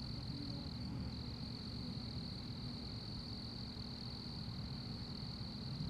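Steady, high-pitched chorus of crickets over a low, steady rumble.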